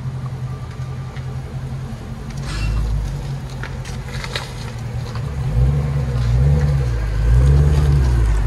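Exhaust of a 6.4-litre 392 HEMI V8 with muffler delete, rumbling at low speed while the car pulls away. About five seconds in, the engine note rises and falls twice as the car accelerates and gets louder.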